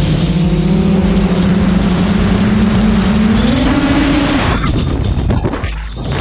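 X-class FPV quadcopter's F1000 545kv brushless motors and propellers droning under throttle. The pitch climbs gradually to a peak, drops away abruptly about four and a half seconds in, and the sound dips briefly near the end.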